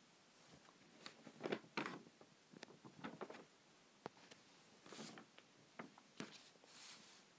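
Near silence with scattered faint clicks and brief rustles, the loudest cluster about one and a half seconds in.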